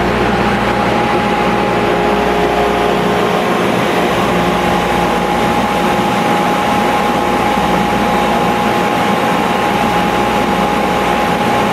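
Double drum sander running with a glued-up board feeding through it, alongside a dust collector: a loud, steady machine noise with a few held tones over it. The drums are resurfacing the top of the glue-up flat.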